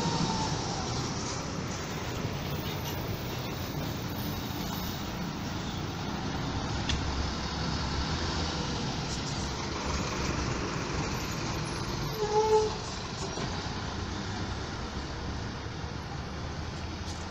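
City bus diesel engines running as the buses pass and pull through the street, over general traffic noise. About twelve seconds in there is a short, pitched tone, the loudest moment.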